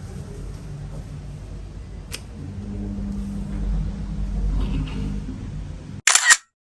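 Car driving, a steady low engine and road rumble, with a sharp click about two seconds in. Near the end a short loud burst of noise, then the sound cuts off abruptly.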